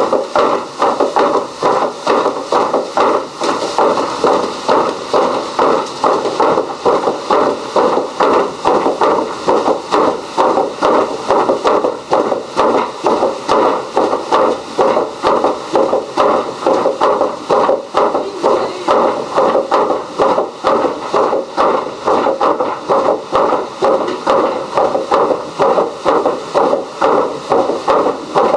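Heavy wooden hammers of a water-driven fulling mill pounding wool in a wooden trough, a steady repeated knocking that keeps up without a break.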